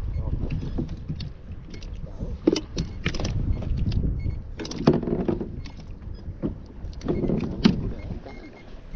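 A few knocks and rattles from handling gear on a plastic fishing kayak, over a steady low rumble of wind on the microphone.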